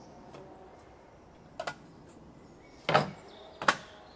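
Three sharp knocks of cookware being handled on a pickup's tailgate, the Omnia stovetop oven being packed away, the second and third louder and under a second apart.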